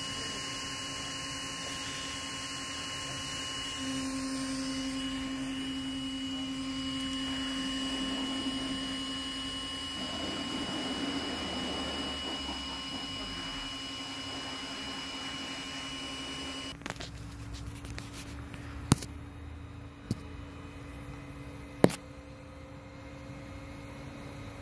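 Cree XHP LED headlight bulb giving off a steady electronic hum made of several pure tones, the fine vibration the high-power LED makes when running. About two-thirds of the way through the tones drop away, and three sharp clicks follow.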